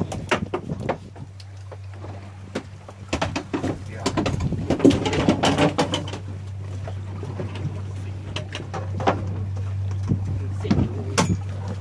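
Boat's outboard engine idling with a steady low hum, under scattered knocks and clatter on the deck and bursts of voices.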